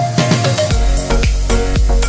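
Background music: an electronic pop track that comes out of a drum roll, with a heavy bass and a steady beat dropping in under a second in.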